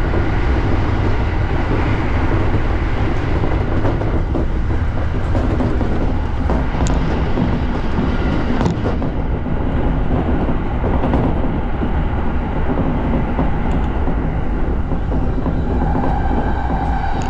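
E231 series electric train running, heard from inside a car: a steady rumble with a few sharp clicks from the wheels over the rails. A steady whine comes in near the end.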